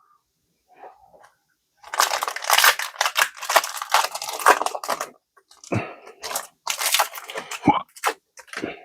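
Foil booster-pack wrapper of trading cards being torn open and crinkled: a long rough tearing rustle of about three seconds, then several shorter crinkles.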